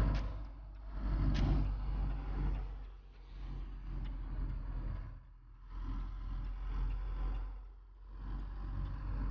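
Cabin noise of a moving car: a steady low rumble of engine and road with a hissing haze that swells and fades every couple of seconds, and a couple of light clicks near the start.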